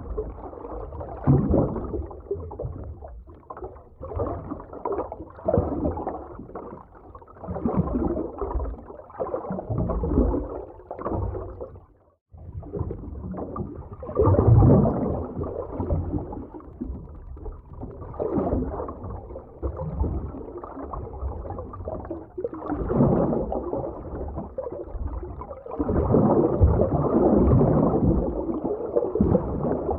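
Underwater ocean ambience: muffled rushing and gurgling water surging in slow, irregular swells. It cuts out for a moment about twelve seconds in.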